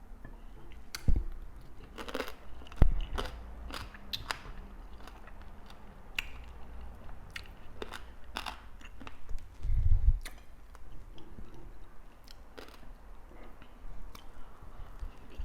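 Close-miked eating sounds: a person biting and chewing food, with many short wet clicks and crunches. Louder low thumps come about a second in, near three seconds, and around ten seconds.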